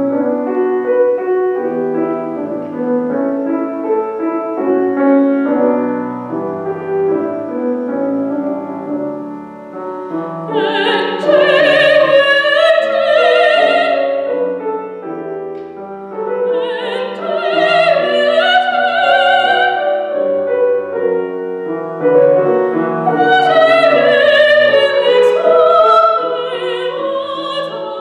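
A grand piano plays a classical accompaniment alone for about the first ten seconds. Then a female classical singer, a soprano, comes in and sings three long phrases with a wide vibrato over the piano.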